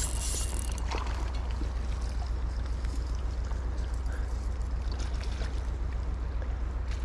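Steady rush of flowing creek water with a constant low rumble.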